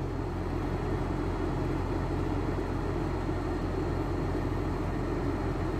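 Air conditioner unit giving off a steady, even mechanical hum. The compressor is humming without starting while drawing high current, which the technician blames on a failed start capacitor.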